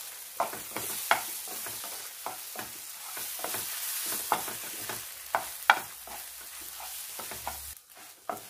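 Eggs sizzling in hot coconut oil in a nonstick pan while a wooden spatula scrapes and taps against the pan, breaking them into large scrambled pieces. The sizzle dips briefly near the end.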